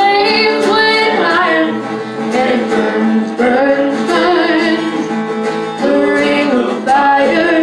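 Live folk-country band: a woman singing over strummed acoustic guitar and electric bass guitar.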